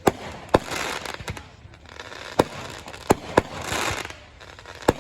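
Fireworks going off: about seven sharp bangs, two of them in quick succession a little past the middle, with stretches of crackling in between.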